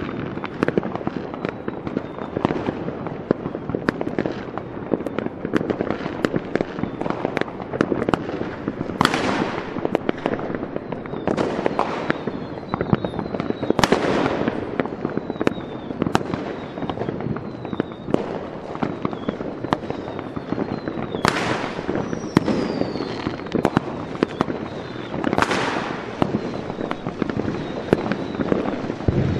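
Fireworks going off one after another: dense crackling and popping, cut through by a few loud whistles that fall in pitch.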